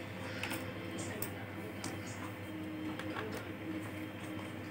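Small scattered clicks and taps of a screwdriver and screws against a laptop's plastic case as it is taken apart, over a steady low hum.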